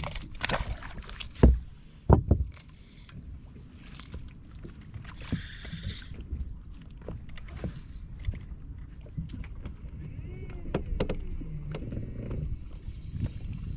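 Knocks and thumps on a fishing boat as a just-caught fish is handled: two loud thumps about a second and a half and two seconds in, then scattered light knocks and rustling.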